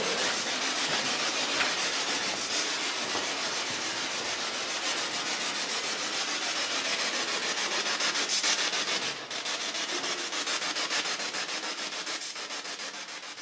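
Radio static from a spirit box sweeping through stations: a steady hiss broken by fast, even clicks, with a brief dip about nine seconds in.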